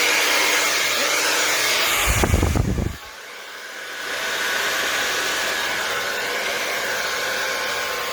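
Hair dryer blowing steadily, with a low rumble about two seconds in. Its sound drops sharply about three seconds in, then builds back up a second later and runs on steadily.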